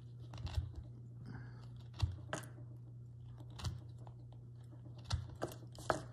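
Carving V-tool cutting across the end grain of a small wooden block: a string of short crisp cuts and scrapes, about seven in all, unevenly spaced. The V-tool is not very sharp, which makes the end grain harder to cut. A steady low hum sits underneath.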